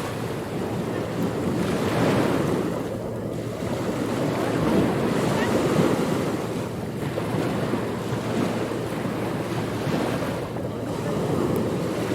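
Ocean surf: waves washing and breaking, the rush swelling and easing every few seconds.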